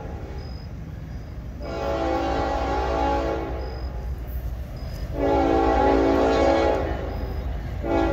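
Approaching locomotive's multi-note air horn sounding two long blasts and then a short one near the end, over the low rumble of the oncoming train. With the long blast that follows, this is the long-long-short-long grade-crossing signal.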